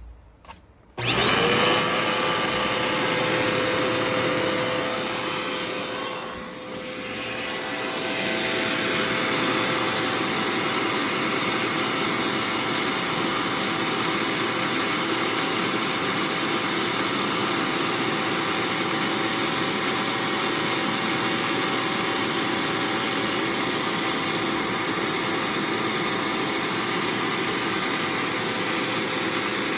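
Budget bagless vacuum cleaner switched on about a second in, its motor spinning up with a rising whine, then running steadily. The sound dips briefly around six seconds in before holding steady again.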